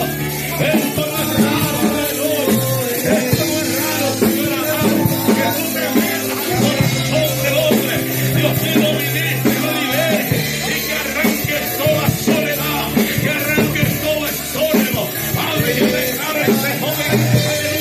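Loud Latin worship music with singing over a steady bass line, playing without a break.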